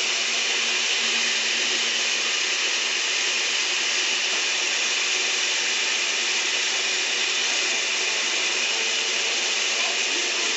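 Countertop blender running at a steady speed, blending a liquid mix of mango, condensed milk and milk with gelatin.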